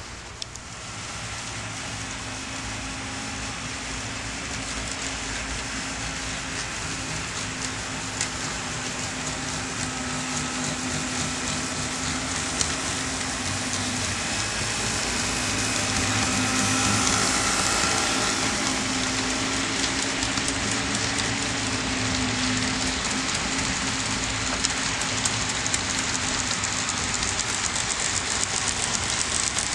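HO scale model train of fifty cars behind two GP-9 locomotives rolling along the track: a steady rush of many small wheels with a low hum and many small clicks. It grows louder up to about halfway through, then stays loud.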